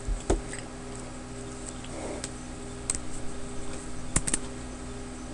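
A few scattered light clicks from handling a computer, with a close pair about four seconds in, over a steady low electrical hum.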